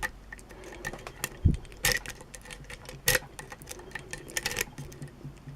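Lock picking: small irregular metallic clicks and taps as a pick and tension wrench work the pins of a pin-tumbler challenge lock, with a quick run of clicks near the end. A short low thump about a second and a half in.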